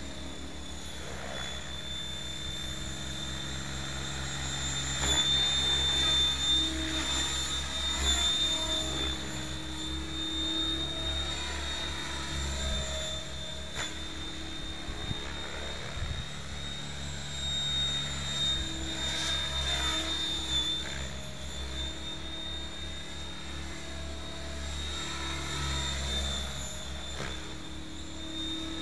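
Mikado Logo 600 electric RC helicopter in flight: a steady high whine over the rush of the rotor blades, getting louder and quieter as it flies about.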